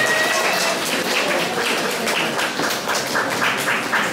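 Audience applauding, with separate hand claps standing out.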